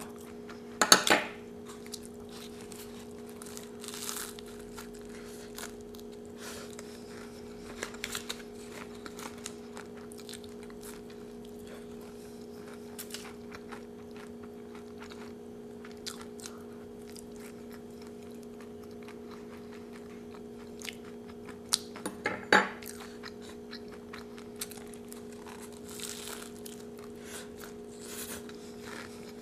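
Chewing and crunching of a crisp Doritos taco: scattered small crunches, with louder bites about a second in and again about three-quarters of the way through, over a faint steady hum.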